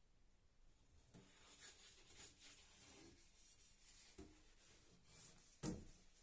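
Faint rustling and rubbing of things being handled, with a few light knocks and one sharper knock near the end.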